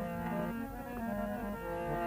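Harmonium playing a melodic interlude in a devotional bhajan: held reedy notes that step to a new pitch every half second or so.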